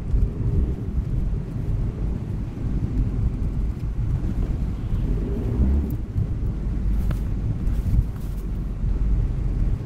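A car driving on a wet road, heard from inside the cabin: a steady low rumble of engine and tyres, with a few brief higher hisses near the end.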